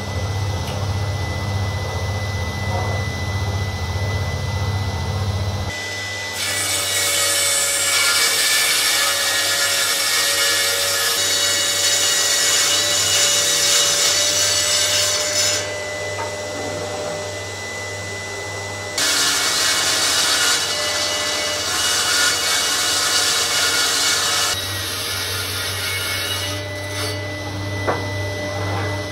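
Table saw ripping ash boards: a steady motor hum, with two long cuts, one starting about six seconds in and lasting about nine seconds, and a shorter one starting about nineteen seconds in. A shop vacuum runs along with the saw.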